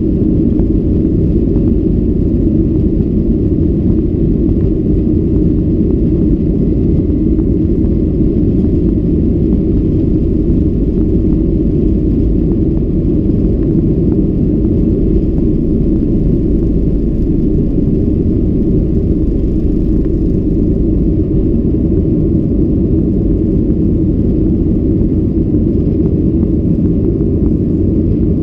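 Boeing 737-800 cabin noise during the takeoff roll and lift-off: the engines at takeoff thrust together with the runway rumble, heard as a loud, steady low rumble.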